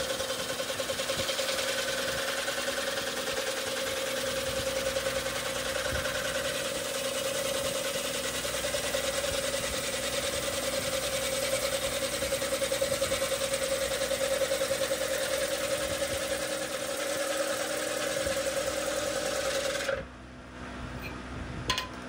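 Bowl gouge cutting a maple bowl spinning on a wood lathe: a steady hiss of the cut over a steady machine tone, pulsing regularly. It cuts off abruptly about 20 seconds in, leaving a quieter background with a couple of clicks.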